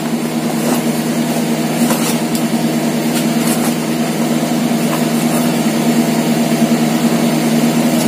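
A steady motor hum runs throughout, with a few short crinkles of a paper bag being handled and opened in the first few seconds.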